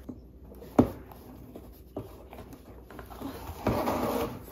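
Cardboard box being worked by hand: a single sharp knock a little under a second in, then a stretch of scraping and rubbing on the cardboard near the end.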